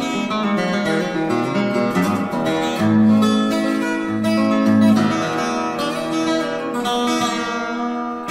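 Instrumental acoustic guitar music: a lively picked tune with a moving bass line under the melody.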